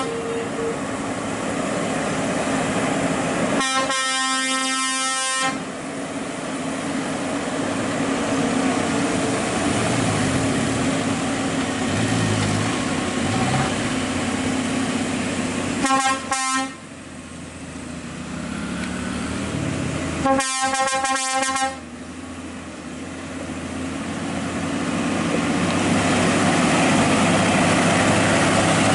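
Scania P-series heavy tractor unit's diesel engine pulling a low-loader carrying a tracked excavator, with its horn sounding: one long blast about four seconds in, two short toots around sixteen seconds, and a quick run of toots around twenty-one seconds. The engine grows louder near the end as the truck draws close.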